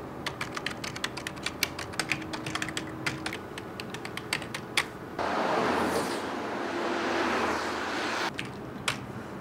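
Fast typing on a computer keyboard, a quick run of key clicks for about five seconds. It gives way to a steady rushing noise for about three seconds, with a few more key clicks near the end.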